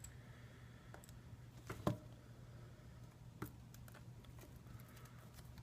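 Faint clicks and taps of small tools handling a smartphone during repair, a sharp click about two seconds in and another near three and a half seconds, over a low steady hum.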